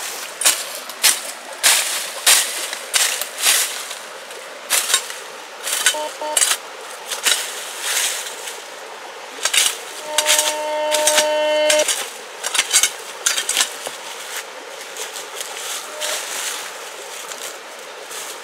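A metal tool strikes stone or stony ground again and again, in sharp irregular clinks at about one to two a second. A metal detector's steady tone sounds for about two seconds in the middle, with a brief blip of it a few seconds earlier.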